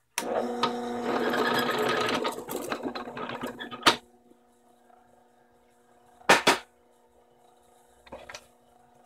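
Drill press boring into a 2x4 with a 1.5-inch bit: the motor hums and the bit cuts noisily for about four seconds, ending in a sharp clunk. The motor then keeps humming faintly, with two short knocks later on.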